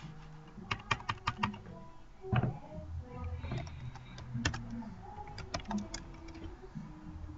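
Computer keyboard being typed on: a few short runs of key clicks with pauses between them.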